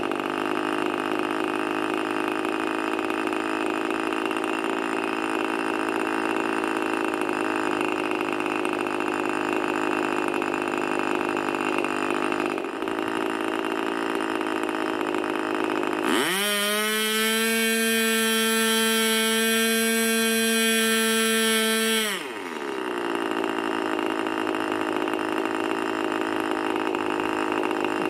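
Irvine 25 two-stroke model glow engine swinging a 9x6 propeller, idling steadily at about 3,500 rpm. About 16 s in it is opened up to full throttle: the pitch climbs quickly and holds steady and high at around 13,500 rpm for about six seconds. It is then throttled back sharply and settles to idle.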